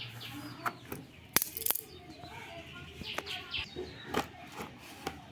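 Small birds chirping in the background, with several sharp clicks and rustles from a delivered parcel being handled.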